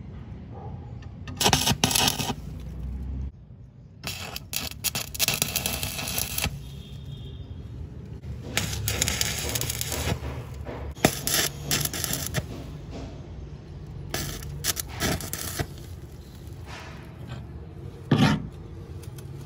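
Arc (stick) welding: the electrode crackling and sizzling in about five short bursts of a second or two each, as a small metal tab is tack-welded to an iron frame. A short sharp knock near the end.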